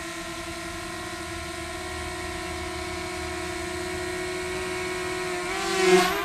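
DJI Mini 2 SE quadcopter's propellers whining with a steady pitch. Near the end the whine grows sharply louder and wavers as the drone passes close.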